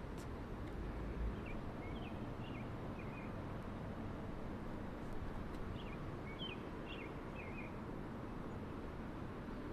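Steady rushing of fast-flowing floodwater, with a songbird singing two short phrases of chirps, about a second and a half in and again about six seconds in.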